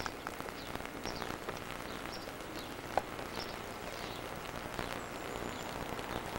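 Outdoor yard ambience: a steady hiss with many faint, short bird chirps scattered through it and a single sharper click about three seconds in.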